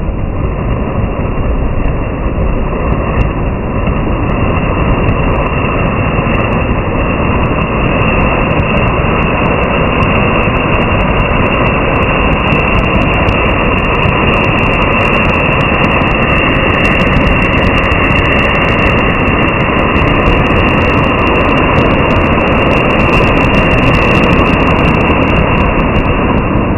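Anar (flower-pot fountain firework) burning on the ground: a steady, loud hissing rush of sparks that slowly grows louder, with crackling that thickens in the second half.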